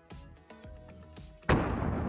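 Background music, then about a second and a half in a single sudden loud hunting-rifle shot, followed by a loud noisy tail.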